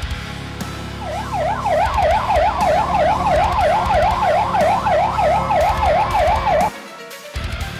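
Fire engine siren in a fast yelp, the pitch sweeping up and down about three to four times a second. It starts about a second in and cuts off suddenly near the end.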